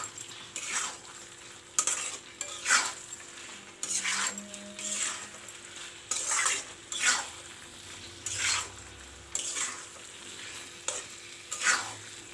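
Spatula scraping and stirring chicken pieces in thick masala in a kadai, with strokes about once a second over a steady sizzle of frying.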